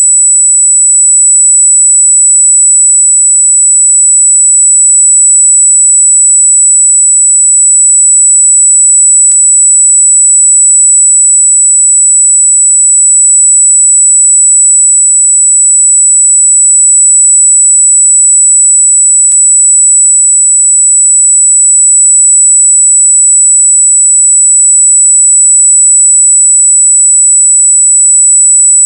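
Synthetic, very high-pitched electronic tone held steady and loud, wavering slightly, made to annoy cats. A faint click sounds twice, about ten seconds apart.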